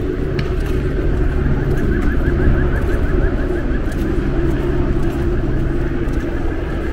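Outdoor street ambience: steady road-traffic rumble from the adjacent avenue, with a quick run of high repeated squeaks or chirps, about four a second, for a couple of seconds in the middle.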